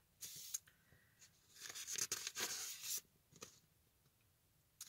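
Bible pages being leafed through: a short papery rustle just after the start, then a longer spell of rustling and swishing pages about one and a half to three seconds in.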